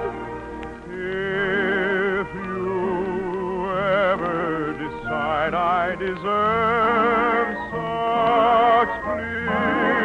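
Operatic soprano singing an operetta song with wide vibrato in long held and gliding high notes over accompaniment.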